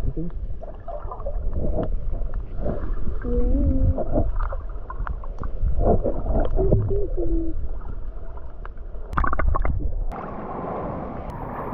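Sea water heard through a camera held underwater: a muffled low rumble of moving water, with a few muffled pitched voice-like sounds and a quick cluster of sharp splash clicks about nine seconds in. About ten seconds in the camera reaches the surface and the sound changes to a thinner wash of water.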